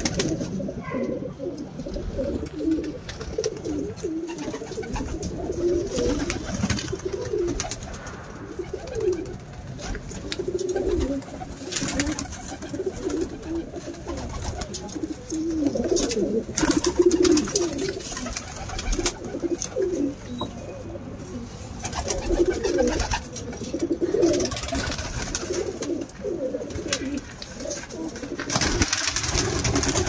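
Domestic pigeons cooing, many low overlapping coos throughout, with a few brief clicks in between.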